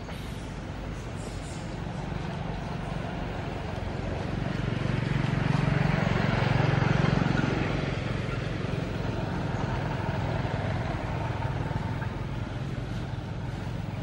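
A motor vehicle passing by: its engine hum and road noise build up, are loudest about six to seven seconds in, then fade away.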